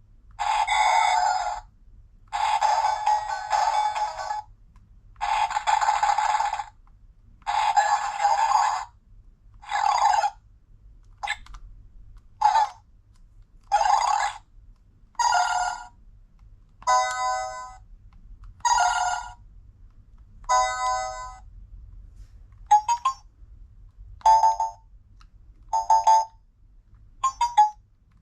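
Early Learning Centre toy remote control playing its electronic sound effects and jingles through its small speaker, one button press at a time: a string of clips a second or two long with short gaps, the later ones shorter beeps and ringtone-like chimes.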